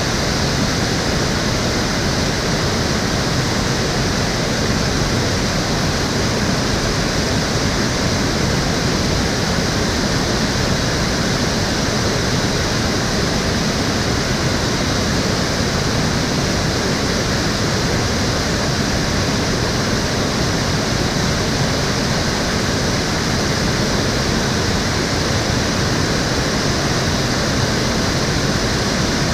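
Water of Cheonggyecheon stream rushing steadily, a continuous even roar of flowing water.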